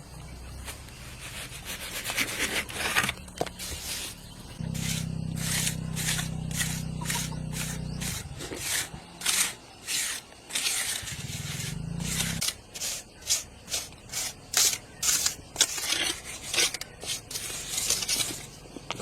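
Repeated rubbing or scraping strokes, about two a second, from a few seconds in until near the end. A steady low hum comes in twice underneath, for a few seconds and then briefly.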